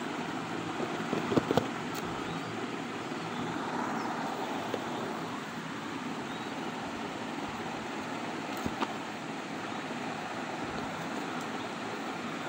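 Steady rushing background noise, with a few sharp knocks and taps from handling a cardboard smartphone box as its lid is slid off: a cluster a little over a second in and another pair past the middle.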